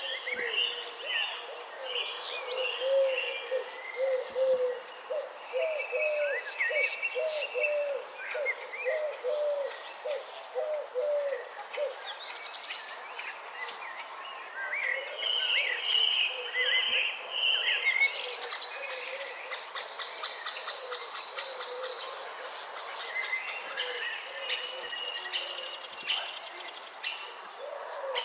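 Forest nature ambience: a steady high insect drone, with birds chirping and trilling over it. A run of low, evenly spaced calls repeats through the first half.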